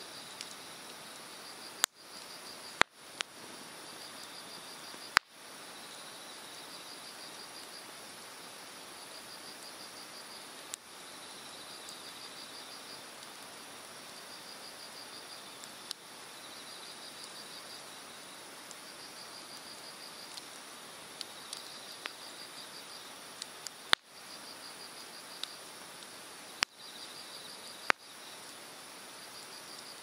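Hardwood fire crackling in an open fire pit, with a few sharp loud pops about two to five seconds in and again near the end, over the steady rush of a mountain stream. Insects chirp in short, repeated trills throughout.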